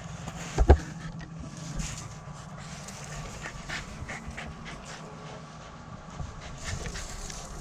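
A dog panting, with one sharp knock about three-quarters of a second in.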